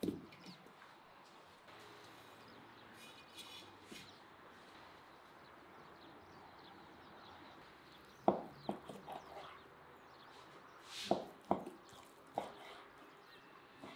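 Faint background for most of the time, then a run of sharp knocks and taps from about eight seconds in; the last few are a knife cutting through raw beef onto a wooden cutting board.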